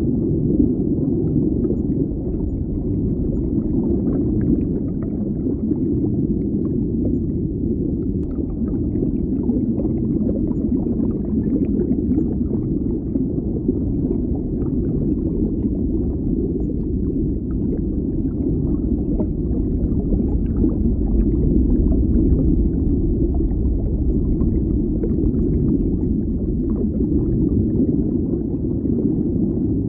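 Muffled underwater bubbling: a steady, low water rumble with faint bubbling crackles flickering above it.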